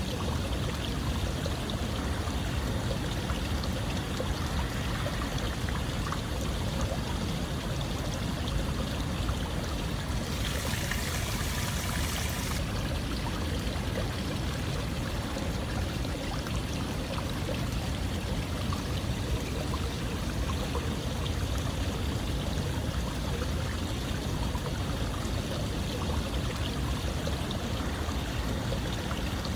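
Running water flowing steadily, like a stream. About ten seconds in there is a brief, brighter hiss lasting a couple of seconds.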